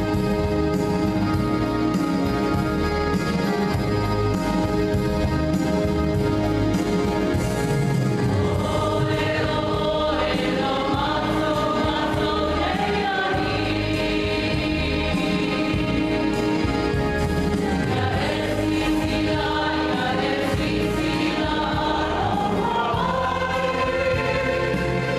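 Yamaha Stagea electronic organ playing sustained hymn chords. About eight seconds in, a church choir comes in singing the hymn in Samoan over the organ.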